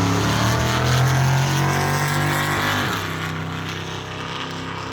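Car engine held at high, steady revs during a burnout; about three seconds in the revs fall away and it carries on at a lower pitch.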